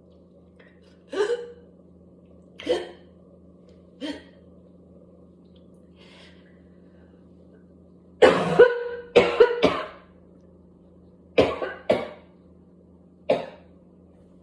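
A person coughing in a spell of harsh, barking coughs from whooping cough: single coughs a few seconds apart, then a loud rapid run of several coughs about eight seconds in, then a few more near the end.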